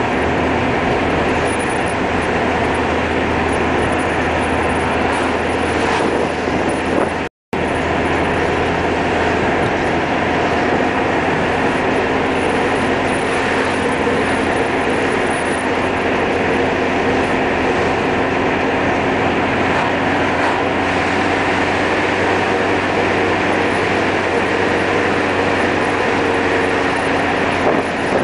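Steady car engine and tyre noise heard from inside a moving car. The sound cuts out completely for a moment about seven seconds in.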